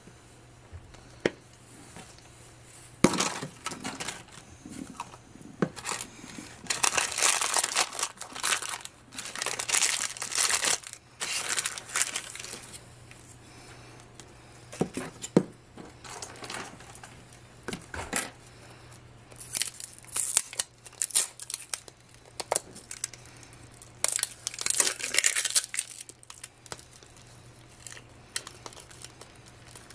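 Plastic blind-bag pouches from a Zuru Mini Brands Fashion capsule being crinkled and torn open in several bursts, with a few sharp clicks and taps from the hard plastic capsule shell being handled in between.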